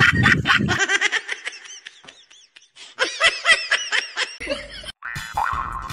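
Laughter: a run of short, high giggles that pauses about two seconds in and then picks up again.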